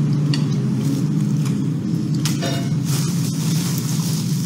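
A steady low mechanical hum, with a few light clinks of chopsticks and spoons against plates.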